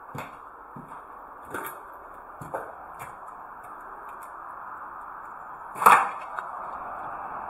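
A few scattered knocks and clicks over a steady hiss, with one much louder knock about six seconds in.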